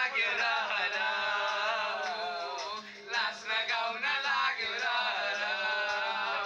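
A man singing a Nepali song into a handheld microphone: two long phrases of drawn-out notes that bend in pitch, with a short break for breath about three seconds in.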